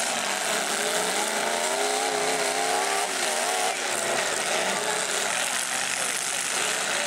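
Demolition derby cars' engines running at high revs over a steady din, one engine climbing and wavering in pitch for about three seconds before dropping away, as a car's wheels spin on the dirt.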